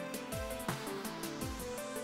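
Background music with a regular low beat about once a second under steady held notes.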